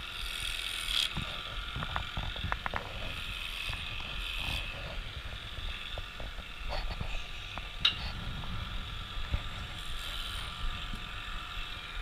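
Electric cattle clippers running with a steady high whine as they clip hair from a cow's hindquarters and tail, with scattered clicks.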